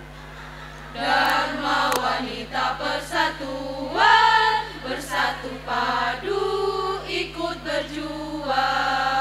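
Women's choir singing in several voices, starting about a second in, with a steady low electrical hum underneath.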